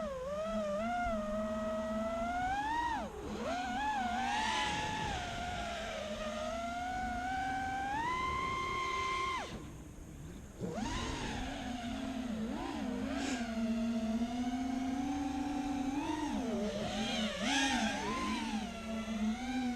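FPV racing quadcopter's motors whining, the pitch rising and falling as the throttle changes. The whine drops away for about a second roughly ten seconds in, then picks up again.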